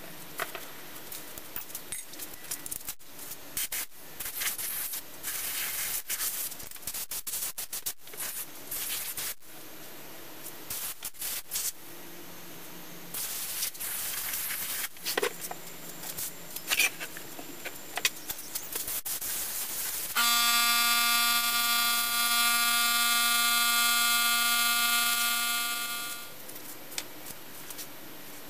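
Compressed-air blow gun blowing loose sand out of a green-sand mold: first light scraping and clicking, then short hissing puffs, then near the end a loud, steady blast of about six seconds with a pitched whistle over the hiss.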